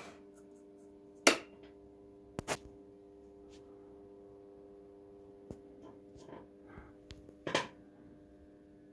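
Steady low hum from an x-ray tube test rig on a bench. Over it come several sharp clicks and knocks from handling the equipment: a loud one about a second in, a quick double a second later, and another loud one near the end.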